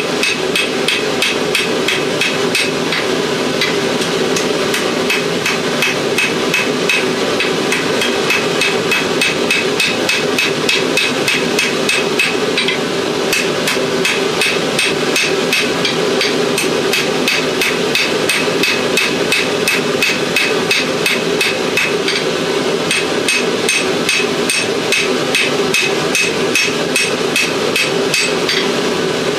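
Hammer blows ringing on steel at an anvil, a steady run of evenly spaced strikes as an old file is rough-forged into a knife blade. A steady hum runs underneath.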